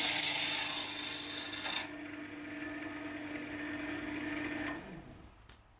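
Wood lathe running with a steady motor hum while a turning chisel cuts into a spinning hardwood blank, a loud hiss of shavings that lightens about two seconds in. The lathe stops near the end.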